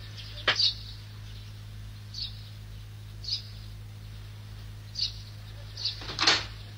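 Metal ring door knocker rapped against a heavy wooden door: two quick knocks about half a second in and a louder clack near the end. Short high bird chirps sound now and then in between, over a steady low hum.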